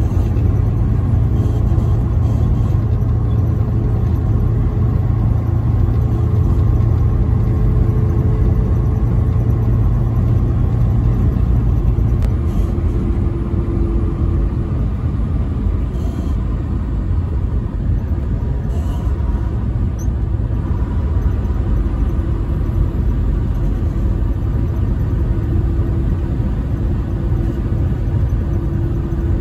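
Steady rumble of a semi-truck cruising at highway speed, heard from inside the cab: engine drone and road noise, with a low hum that eases a little about twelve seconds in.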